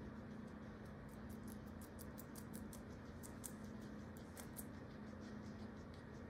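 Guinea pig chewing food: a run of small crisp crunches, about five a second, with a short pause, stopping a little past the middle.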